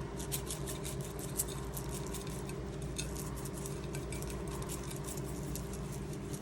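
A seasoning shaker being shaken over a pot, a quick irregular patter of light ticks, over a steady low hum.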